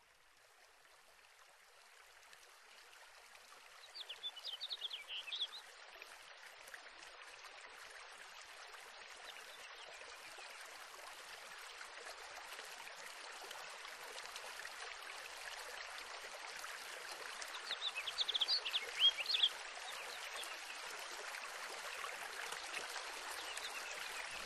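Running stream water fading in slowly from silence and then flowing steadily, with two short bouts of bird chirping, about four seconds in and again past the middle.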